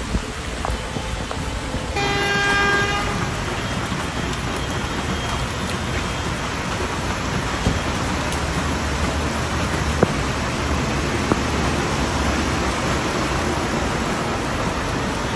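Heavy rain pouring steadily onto a flooded street. A car horn honks once for about a second, about two seconds in.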